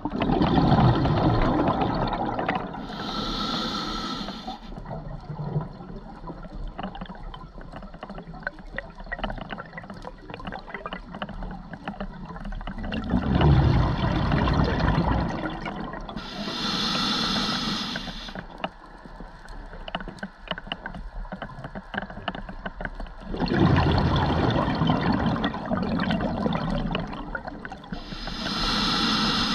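Scuba diver breathing through a regulator underwater, slowly, about one breath every 13 seconds: each breath has a short hiss of the inhale and a longer, louder gurgling rush of exhaled bubbles, with faint bubble crackle in between. Three breaths are heard.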